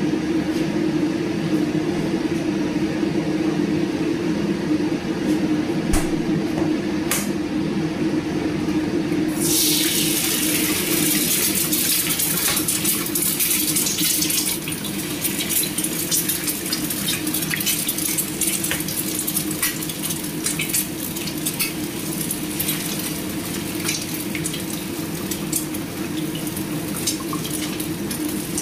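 An egg frying in hot oil in a pan: a sudden loud sizzle starts about nine seconds in, full of sharp crackles and pops of spitting oil, and eases a little a few seconds later. Before that there is only a low steady hum and a couple of clicks.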